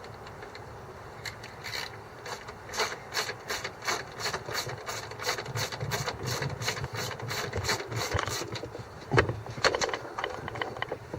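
Ratchet wrench clicking steadily, about four clicks a second, as a bolt on the truck's plastic grille is turned, followed by a few louder knocks near the end.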